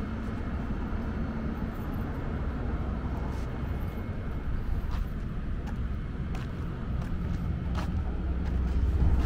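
A vehicle engine running with a steady low rumble that grows louder near the end.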